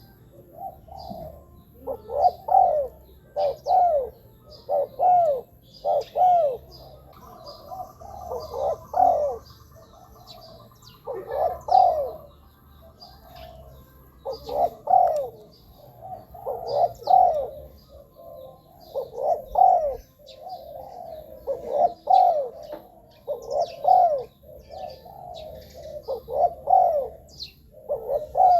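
Spotted dove cooing over and over in short phrases every second or two. Faint high chirps from small birds sound above it.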